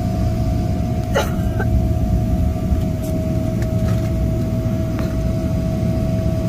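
Cabin noise of a jet airliner taxiing after landing: a steady low rumble from the engines and the rolling gear, with a steady whine over it. One short sharp sound comes about a second in.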